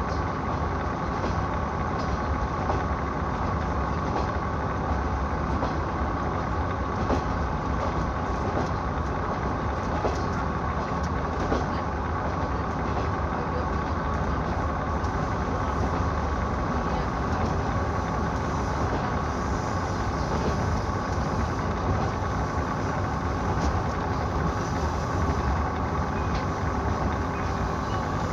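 KiHa 66 diesel railcar under way: steady engine and running noise, with a few faint clicks scattered through it.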